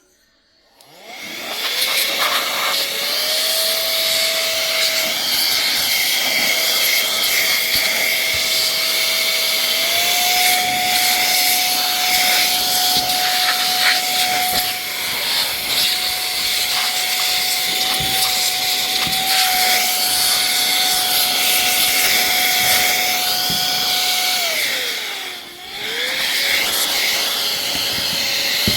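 Small high-speed electric fan motor switched on, spinning up with a rising whine, then running steadily with a loud hiss. It slows briefly near the end and spins back up.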